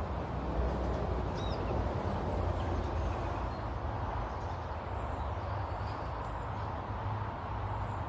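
A steady low rumble, like distant traffic or wind, with a few faint, short, high bird chirps scattered through it.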